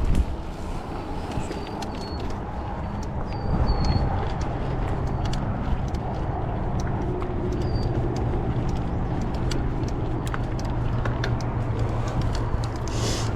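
Mountain bike ridden over rocky, rooty singletrack: steady tyre rumble and wind noise, with frequent rattling clicks from the bike over the rough ground and a few short high chirps.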